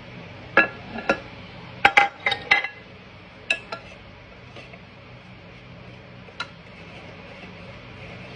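A utensil clinking against a mixing bowl while batter is stirred: a quick run of sharp, ringing clinks in the first three seconds, a couple more soon after, and a single clink past the middle.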